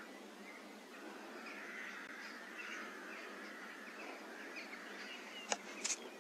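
Small birds chirping and twittering faintly in the background. About five and a half seconds in there is a single sharp click, followed almost at once by a brief high hiss.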